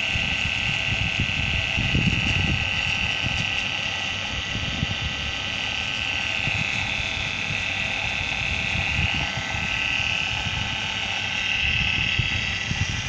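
LUST servo motor, with a multi-groove pulley on its shaft, running on test after repair: a steady high whine over a hum with several steady tones. The whine dips briefly in pitch a few seconds in.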